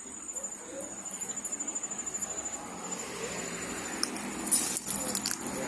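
Quiet ambience with a thin, steady high-pitched whine, and a few faint knocks or clicks about four to five seconds in.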